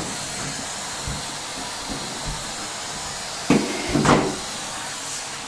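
Vacuum cleaner running with a steady rushing hiss, broken by two short, louder sounds about three and a half and four seconds in.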